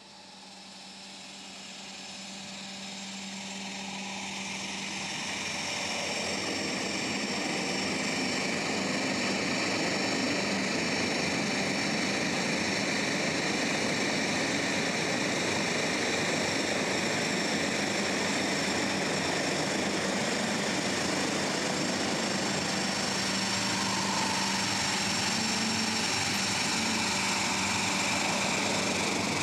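De Havilland Canada DHC-5 Buffalo's two General Electric T64 turboprop engines running as the aircraft taxis. A steady high turbine whine sits over a low propeller hum. It grows louder over the first ten seconds or so, then holds steady.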